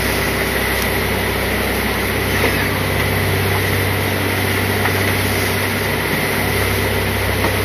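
Fishing boat's engine running steadily: a constant low drone with a thin, steady high whine above it.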